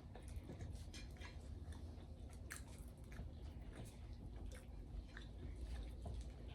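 A person chewing food close to the microphone, with many small, irregular mouth clicks.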